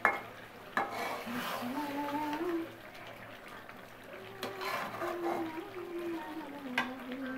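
Metal spatula stirring and scraping thick chicken curry in an aluminium pan, with several sharp clacks of the spatula against the pan, the loudest at the start. A low hummed tune runs underneath.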